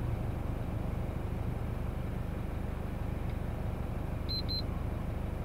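Steady low hum inside a car, with two short, high electronic beeps in quick succession about four seconds in.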